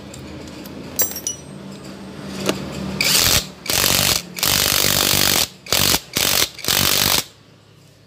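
Cordless impact wrench with a 14 mm socket running in about six bursts, two long and the rest short, from about three seconds in, hammering the magneto flywheel nut tight on the crankshaft.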